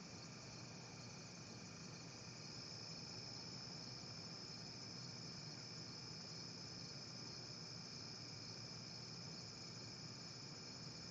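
Faint, steady chorus of crickets trilling without pause, with a low, steady hum underneath.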